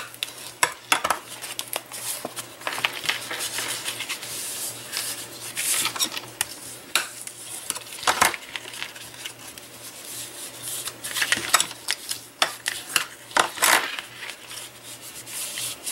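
Scored cardstock covered in aluminium foil tape being folded along its score lines and creased with a bone folder: irregular crinkling, crackling and scraping.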